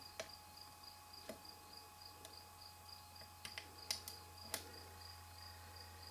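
A cricket chirping steadily, about four pulses a second, over a low steady hum, with a few sharp clicks and taps, the loudest a little before and after the four-second mark.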